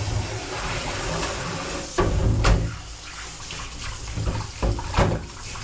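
Kitchen tap running through a spray head into a steel bowl of water in a stainless-steel sink, as hands rub and turn a raw pork neck under the stream. Louder splashes come about two seconds in and again near the end as the meat is handled in the bowl.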